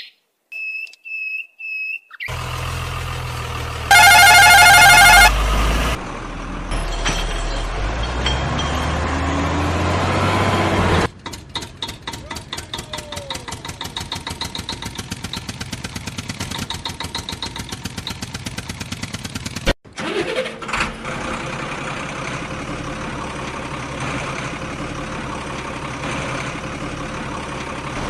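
Vehicle engine sounds laid over toy trucks and a toy tractor: a loud warbling horn-like tone for about a second, then an engine running steadily. It changes abruptly to a fast, even putter, and after a sudden cut settles into a steady engine drone.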